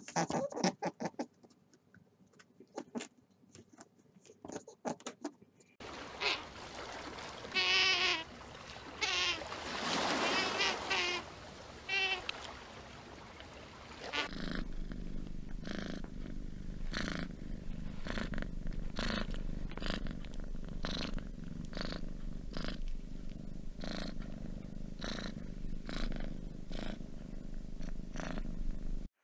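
Tabby kitten purring steadily through the second half, in even pulses about once a second. Before it come faint clicks and then a run of loud, high, warbling animal calls.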